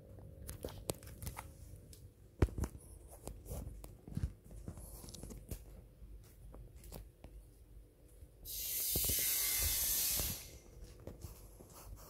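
Scattered clicks and knocks at irregular intervals, the loudest about two seconds in, with a loud steady hiss lasting about two seconds near the end.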